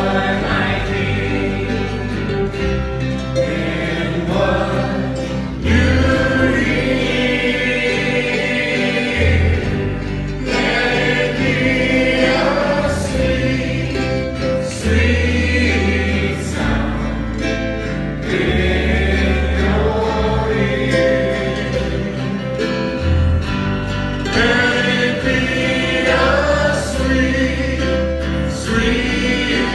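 Worship song: a group of voices singing over instrumental backing with a sustained bass line that changes note every second or two.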